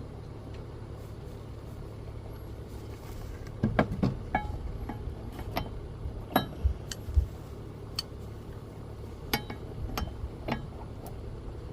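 Irregular sharp metallic clinks and knocks, some briefly ringing, from hand tools and a cheater bar on a lawnmower blade bolt, starting about three and a half seconds in over a steady low rumble.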